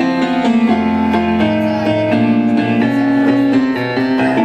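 Keyboard playing a blues-style accompaniment, a run of sustained chords changing every second or so.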